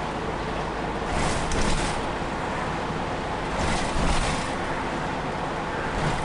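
Interior of a moving city bus: steady engine and road noise with a low rumble. A hiss swells and fades about every two and a half seconds.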